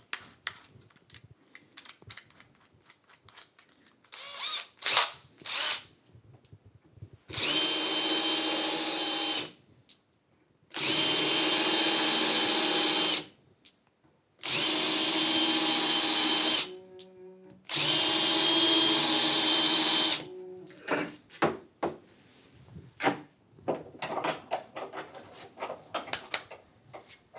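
Cordless drill with a countersink bit countersinking screw holes in end-grain wooden brackets, in four steady runs of about two seconds each with short pauses between. Small knocks and clicks of the workpieces being handled come before, between and after the runs.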